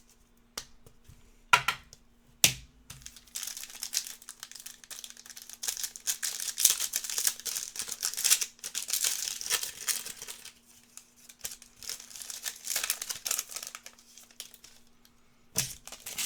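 A trading-card pack's foil wrapper being torn open and crinkled by hand for about ten seconds, after a few sharp knocks at the start.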